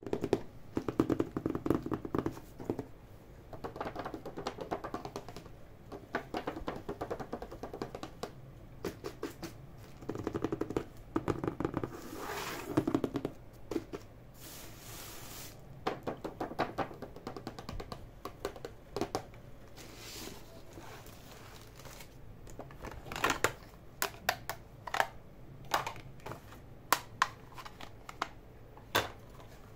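Hands handling a gift-wrapped box: a string of light taps, clicks and scratches with short rustling rubs, and a longer hissing rub about halfway through.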